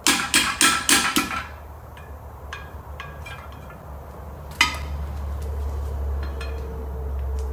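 Hammer striking a chisel against a rear-axle bearing retaining ring on a 1961 Chevrolet axle shaft, splitting the ring after it has been ground into. About five quick ringing metal strikes in the first second and a half, lighter taps after, and one more hard strike about halfway through, followed by a low steady hum.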